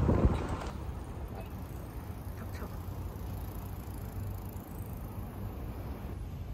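A voice briefly at the start, then steady outdoor street noise: a low rumble of traffic.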